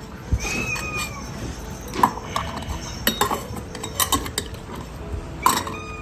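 Cat food bowls and dishes clinking and knocking as food is set out: about seven sharp clinks, some in quick pairs. A short high cry, rising then falling, comes about half a second in.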